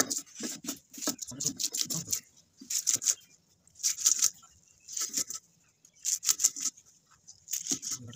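Stone muller scraping back and forth on a stone grinding slab, grinding red chillies into a wet paste by hand. Gritty scraping strokes come roughly once a second, a little quicker near the start.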